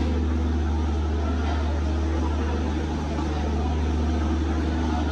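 Steady low diesel drone of a passenger train standing at the platform, its engine idling.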